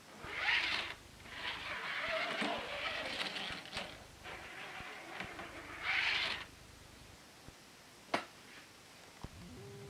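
Wooden toy boxcar's wheels rolling along plastic toy-train track as it is pushed by hand, in three stretches of rolling noise, followed by a single sharp click about eight seconds in.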